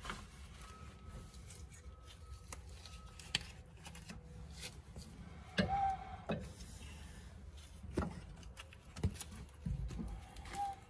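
Scattered metal clicks and knocks as a new CV axle's splined outer shaft is worked into the steering knuckle and wheel hub, with the sharpest knocks about six and eight seconds in.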